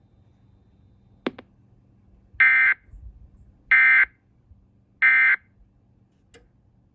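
Emergency Alert System end-of-message code: three identical short bursts of shrill digital data tones, about 1.3 seconds apart, the signal that closes the alert broadcast. A sharp click comes a little over a second in, before the first burst.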